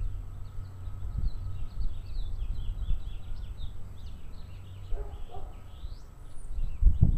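Small birds chirping in quick, repeated short calls, with one rising whistled call about six seconds in, over a steady low rumble.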